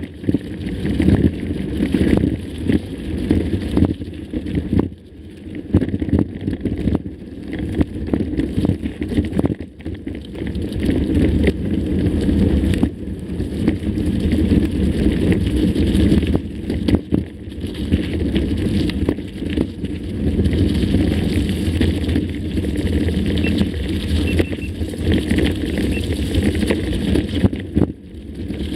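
Mountain bike ridden over a rough trail: a steady rumble with frequent clicks and knocks from the bike rattling over the ground.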